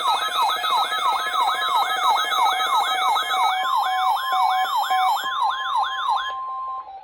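A weather radio's siren-style alert alarm: a loud tone sweeping up and down about three times a second over a steady tone. The sweeping stops about six seconds in and the steady tone cuts off shortly after.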